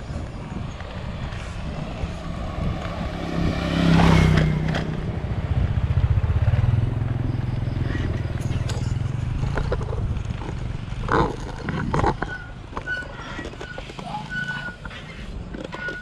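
A motorbike engine running close by: a low rumble that swells about four seconds in, holds, then eases off after about ten seconds. There are scattered knocks and clicks near the end.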